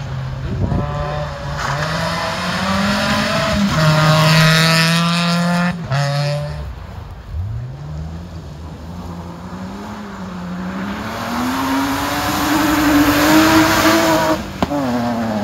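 Rally cars at full throttle: first one car is heard revving hard up through its gears, then a white BMW 3 Series Compact rally car approaches with its engine note climbing under acceleration and passes close near the end, the pitch dropping sharply as it goes by.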